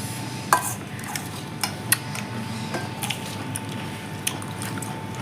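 Irregular light clicks and clinks of small hard objects knocking together, about a dozen over a few seconds, with a faint steady hum underneath.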